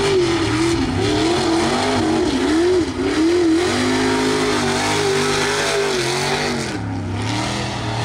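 Mega mud truck engine revving hard, its pitch surging up and down again and again as the throttle is worked, loud throughout.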